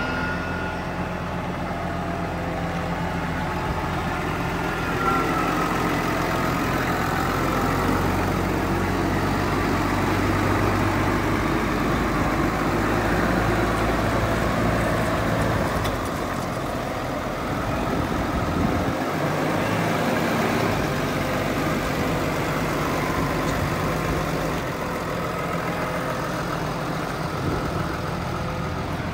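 New Holland tractor's diesel engine idling steadily, a low even hum, its low end thinning for a few seconds past halfway.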